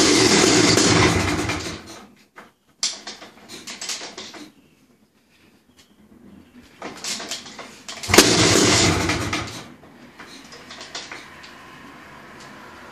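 Honda CR500 single-cylinder two-stroke engine being kick-started with the choke on, catching and running for a second or two before dying, twice: once at the start and again about eight seconds in. It fires but won't stay running, which the owner suspects is the Smartcarb's weak throttle-valve spring letting the throttle open enough to bypass the choke circuit.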